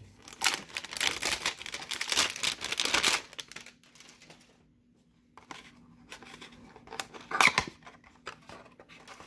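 Cardboard Panini Status hanger box being torn open at its side flap: about three seconds of tearing and crinkling, a pause, then scattered handling noises with one louder rip later on.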